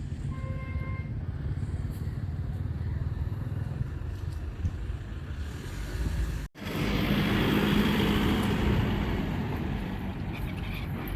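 Steady low engine rumble, with a short beep about half a second in. About six and a half seconds in the sound cuts out abruptly and returns louder, with a rushing noise over the engine.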